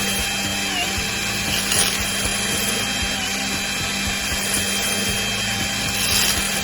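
A small power tool's motor running steadily, with a few sharp clicks from the work.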